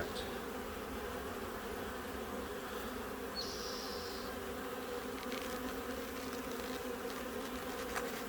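Honeybees of an open hive buzzing in a steady, many-toned hum, the colony stirred up by the inspection. A brief high hiss sounds about three and a half seconds in.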